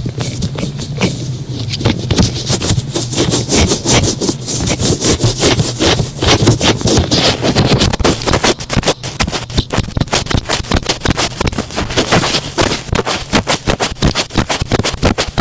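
Thick cotton swabs rubbing and squeezing in ear-cleaning ASMR, a quick run of scratchy, squishy strokes several times a second.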